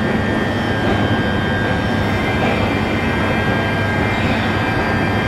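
Electric multiple-unit train standing at an enclosed station platform, its onboard equipment giving a steady drone with several high, unchanging whine tones.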